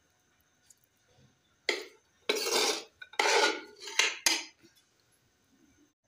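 A metal spoon knocking and scraping against a metal pan while scooping out fried diced potatoes: one sharp knock, then several scrapes, the longest about half a second each.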